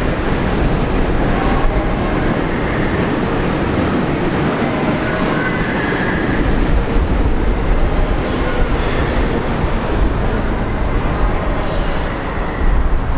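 Sotetsu electric commuter train running slowly on the curving approach tracks: a steady rumble of wheels on rail, with short faint wheel squeals now and then.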